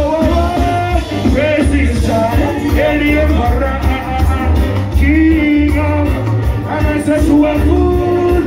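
Live reggae band playing loud through a PA: electric guitar, bass guitar and drum kit with a heavy bass line, and a male singer's voice over the band.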